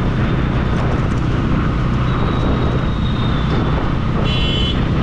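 Motorcycle riding through city traffic: steady engine, road and wind noise picked up by the action camera's microphone. A short high beep comes near the end.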